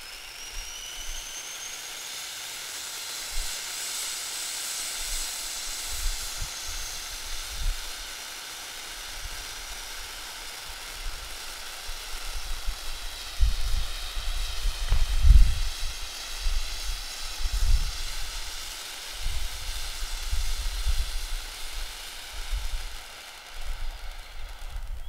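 Black Cat Plasma Gun handheld firework fountain spraying sparks with a steady hiss and a whistling tone that rises in pitch over the first few seconds, then holds. From about halfway, irregular low rumbles come and go beneath it. The spray cuts off at the very end.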